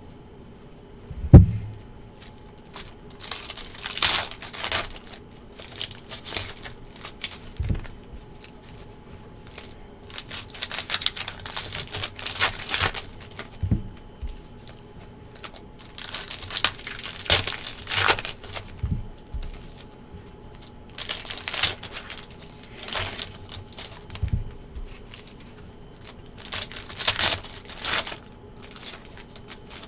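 Foil trading-card pack wrappers crinkling and tearing as packs are ripped open and handled, in repeated irregular bursts. A sharp thump about a second and a half in, with softer thuds later.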